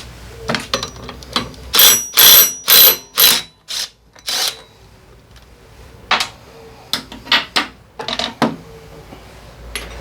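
Metal tools and parts clanking and clinking in a series of short, sharp knocks with a metallic ring, loudest in a quick run of four a couple of seconds in, then lighter clicks: hand work on the scooter's drivetrain during disassembly.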